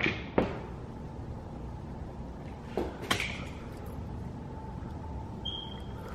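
A few sharp plastic clicks: one about half a second in and two close together around three seconds in, from the licence-plate-light reverse camera housing being snapped into place in the bumper.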